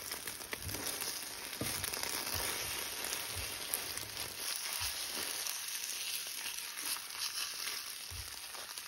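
Scrambled eggs sizzling steadily in butter in a hot cast iron skillet, stirred and pushed around with a wooden spatula, with a few faint soft knocks of the spatula against the pan.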